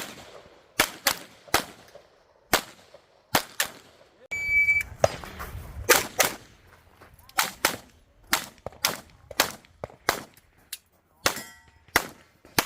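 A 1911-pattern pistol fired some twenty times in quick pairs and singles as a competitor works through a stage, with steel targets ringing when hit, the clearest ring about four and a half seconds in.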